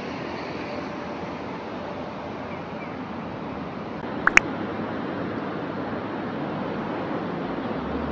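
Steady rushing background noise, with two sharp clicks close together a little past halfway.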